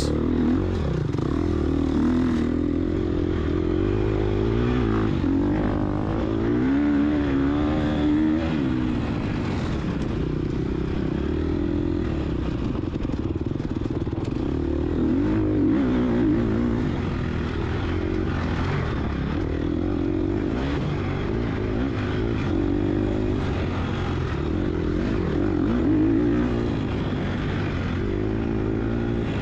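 Gas Gas EX250F dirt bike's 250 cc four-stroke single-cylinder engine under race throttle, revving up and easing off again and again.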